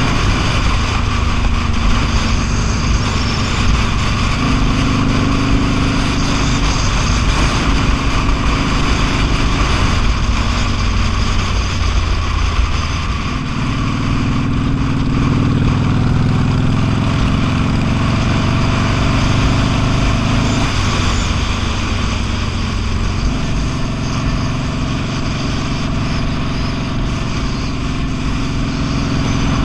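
V-twin motorcycle engine running at road speed, its pitch shifting a few times as the throttle and speed change, over steady wind and road noise.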